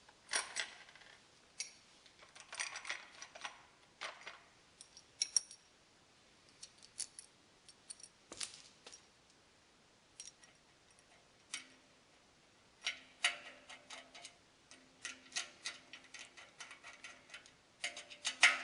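Small steel hardware clicking and clinking as 1/4 inch bolts, nuts and steel Z brackets are handled and fitted to a steel stand: scattered sharp taps, with quicker runs of small clicks in the second half.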